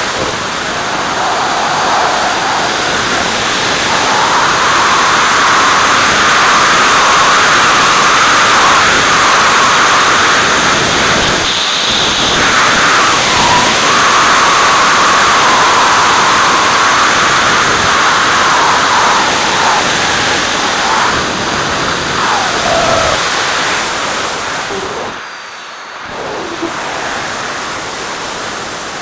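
Loud, steady rush of airflow over an onboard camera on an aircraft in flight. It drops briefly about 25 seconds in, then comes back.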